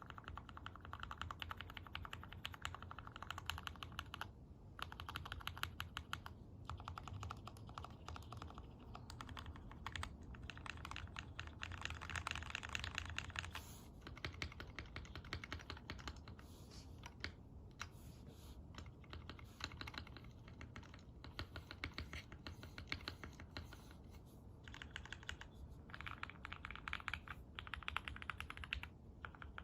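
Fast typing on a QK65 mechanical keyboard with an aluminum plate and Cherry MX Black linear switches, lubed and filmed: rapid runs of key clicks and clacks, broken by short pauses every few seconds.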